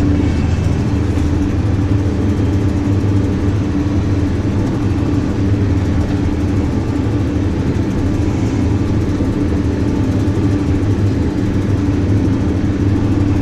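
New Holland tractor's diesel engine running steadily under load as it drives across rough grass, heard from inside the cab as an even drone.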